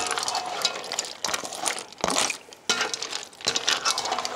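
Stirring penne pasta into broth in a pot: a utensil scraping through the pasta and clinking against the pot several times, roughly once or twice a second.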